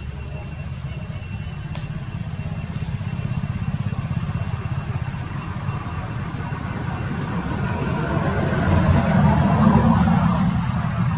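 A motor vehicle's engine running nearby over a steady low rumble, swelling louder from about five seconds in to a peak near the end.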